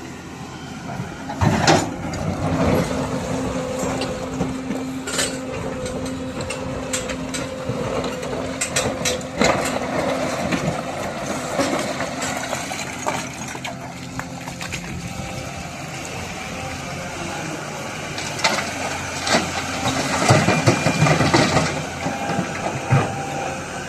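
Hydraulic excavator working among rocks: the engine runs steadily while the bucket and rocks give repeated knocks, clanks and scrapes, with loud impacts about a second and a half in, near the middle and again near the end.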